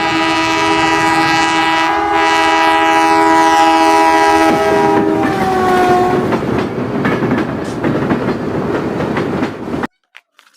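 A train horn sounding a steady chord for about five seconds, its pitch dropping as the train passes, followed by the rumble and clatter of the train running by. The sound cuts off abruptly near the end.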